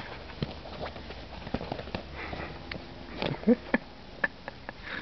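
Young German pinscher puppies sniffing and scuffling on a blanket, with small scattered taps and clicks. About three and a half seconds in there is a short squeak followed by a few sharp ticks.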